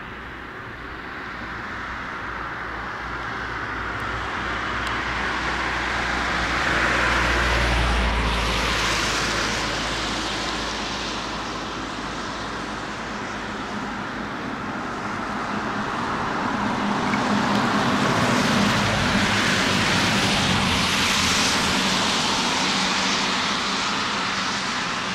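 Flyover of an Airbus A400M Atlas four-turboprop transport with a JAS-39 Gripen and two Eurofighter Typhoon fighter jets in formation. A steady engine rush with a low propeller hum swells to a peak about eight seconds in, eases, then swells again near twenty seconds.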